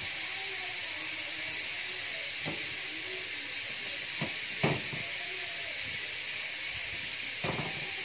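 Steady hiss of steam from a couscoussier on the boil, the steam rising through the couscous in the steel steamer basket. A few light knocks come over it, the loudest about halfway through.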